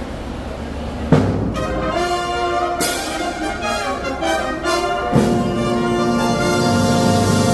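Brass band with trumpets, trombones and sousaphone starting about a second in with a sharp accented chord, after a steady low hum, then playing sustained chords, with a second strong accent about four seconds later.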